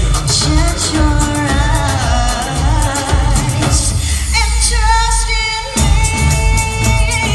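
Show soundtrack: an Indian-style song with singing over a steady beat. The percussion drops out for about a second just past halfway, leaving a held sung note, then comes back in.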